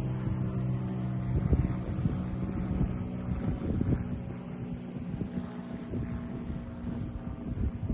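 Wind buffeting the microphone in uneven gusts over a steady engine hum, such as a motorboat offshore. The hum is strongest at first and fades soon after the start, leaving a fainter, higher hum.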